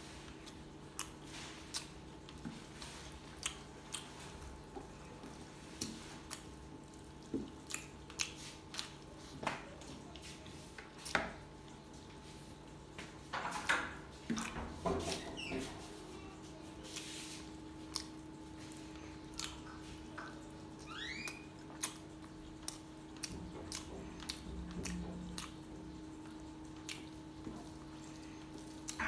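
Close-up wet eating sounds of someone eating chicken and rice by hand: chewing, lip smacks and fingers working through gravy-soaked rice, heard as a string of short wet clicks and smacks with a busier patch about halfway through. A steady low hum runs underneath.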